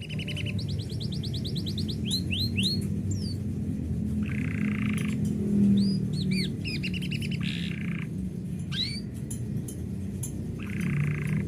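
Domestic canary singing in varied phrases: fast trills, quick downward-sweeping whistles and short buzzy rattles, over a steady low background rumble.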